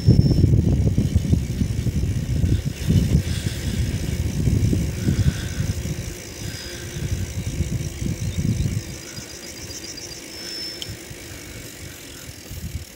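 Riding a bicycle on asphalt, with gusty wind rumbling on the microphone that eases after about nine seconds. Around eight seconds in, the freewheel gives a brief run of rapid ticks as the bike coasts.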